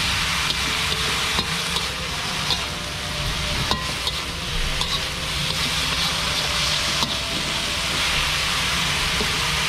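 Durian flowers stir-frying in a wok: steady sizzling, with a slotted spatula scraping and clicking against the pan now and then as the vegetables are tossed.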